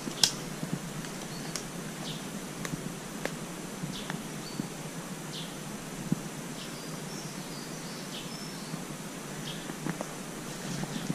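Footsteps crackling over dry pine needles and twigs on a forest floor, with one sharp crack about a quarter of a second in, while a bird gives short chirps every second or two in the background.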